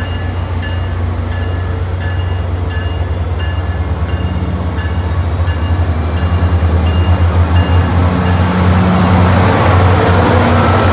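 SunRail bilevel commuter train rolling past the platform: a steady low diesel drone and wheel-and-rail noise that grow louder toward the end as the locomotive draws near. A bell dings steadily, about once every 0.7 seconds.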